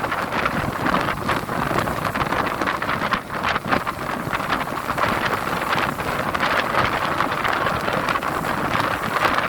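Sea waves surging and washing, a continuous rushing noise with frequent short surges.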